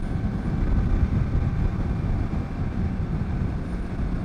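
Honda CB1000R inline-four motorcycle running steadily at road speed, heard under a heavy, fluttering wind rumble on a helmet-mounted microphone fitted with a foam wind muffler.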